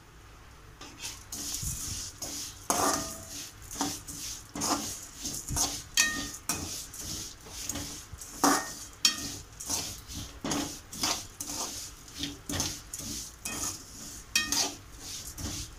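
A ladle scraping and knocking against a metal kadai as broken vermicelli is stirred and roasted in ghee. The strokes start about a second in and run irregularly, about one or two a second.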